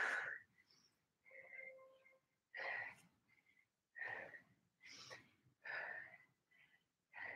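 A woman breathing hard while doing dumbbell lunges: six short, forceful exhales at uneven intervals of about a second.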